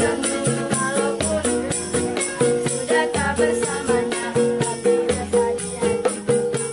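Upbeat music with a steady beat, pitched notes changing in a regular rhythm, and jingling percussion throughout.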